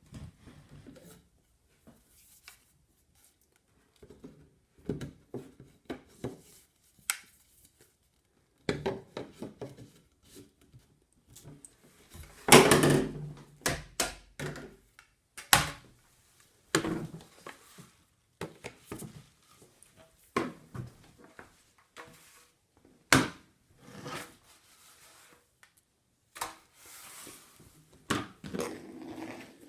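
Sebo Felix vacuum's hose and attachments being handled: scattered knocks, clicks and rattles, with the loudest clatter about thirteen seconds in and sharp knocks a few seconds and ten seconds after that. The motor is not running.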